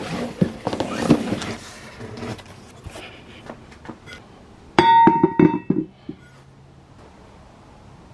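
Handling noise, then a cluster of sharp metallic clanks that ring on with a clear bell-like tone about five seconds in, as the old and new cast-iron brake rotors are picked up and knocked together or set down.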